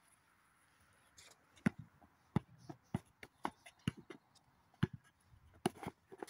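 A football being played on dry dirt: a string of irregular, sharp taps and thuds that starts about a second in after a quiet moment.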